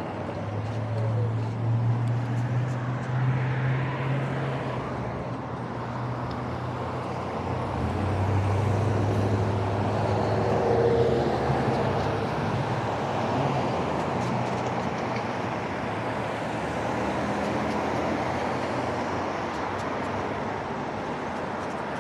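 Road traffic on wet streets: cars and trucks pass with a low engine hum, loudest twice, over a steady hiss of tyres on wet pavement.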